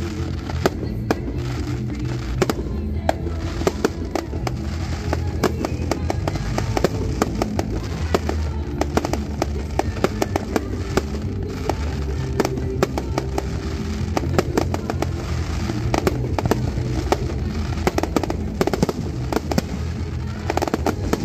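Fireworks display: a rapid, irregular stream of shell bangs and crackling star bursts, over music playing.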